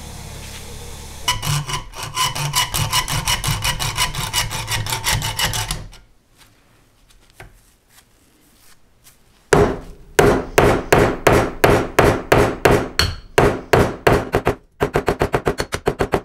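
Ball-peen hammer tapping the end of a thin steel toy-truck axle rod to peen it over. The first run of strikes is fast and light, with a faint metallic ring. After a pause, harder, sharp blows come about four a second, quickening near the end.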